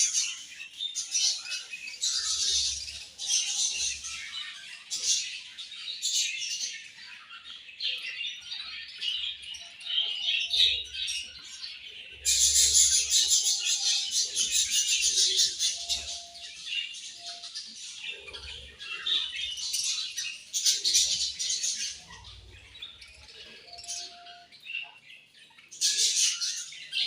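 A flock of budgerigars chirping and chattering continuously, many birds at once, in waves that swell loudest about halfway through and again near the end.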